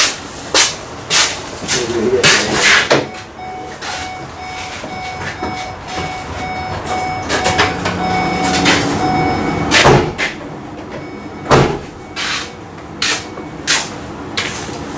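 Ford E350 van door being opened and someone climbing into the cab: a string of clicks, knocks and rustles. A steady electronic beeping tone sounds for about six seconds in the middle.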